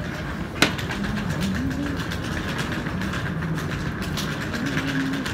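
Train-station concourse ambience: a steady rumble of rail traffic, with a single sharp click about half a second in.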